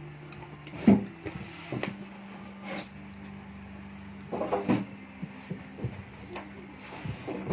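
Eating sounds from a meal of adobo chicken feet and rice: scattered knocks and clicks of handling food, the sharpest about a second in and a cluster around four and a half seconds, over a steady low hum.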